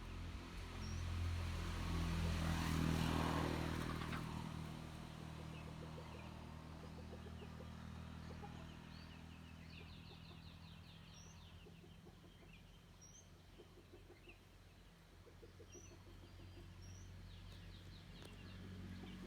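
A motor vehicle passes, loudest about three seconds in and fading by about five seconds, over a steady low hum. Small birds chirp throughout.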